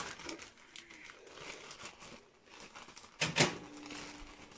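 Clear plastic zip-lock bag rustling and crinkling as it is handled, its press-seal clicking shut. A sharper, louder rustle comes about three seconds in.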